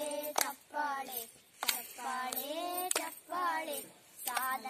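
Children singing a Kannada clapping song together, clapping their hands in time about four times, roughly once every second and a quarter.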